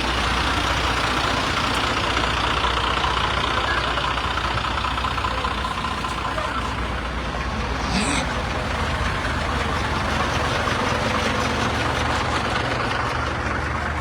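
Steady outdoor din of running vehicle engines with background voices. A brief sharp sound cuts through about eight seconds in.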